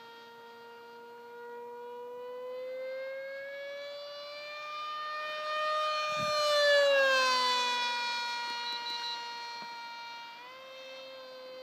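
Whine of a foam RC airplane's motor and propeller in flight, rising in pitch and growing louder to a peak about two-thirds of the way through, then dropping in pitch and fading as the plane passes. A brief low thump comes just before the peak.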